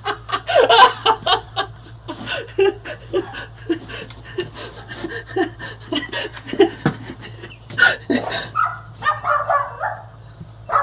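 A man laughing in short, rapid, breathy bursts.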